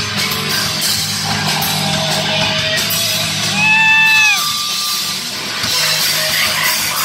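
Live rock band playing loud, with distorted electric guitars, bass and drums. About halfway through, a held high note rises above the band as the loudest moment and slides down as it ends.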